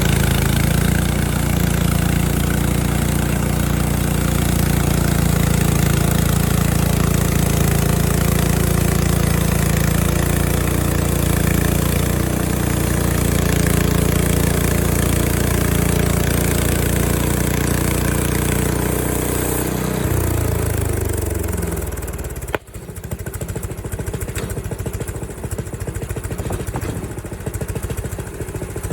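Frontier OS23 portable bandsaw mill's small gas engine running at full throttle while the band blade cuts through an apple log. About 20 seconds in the engine slows, and after a sharp click about two seconds later it drops to a quieter, rougher idle.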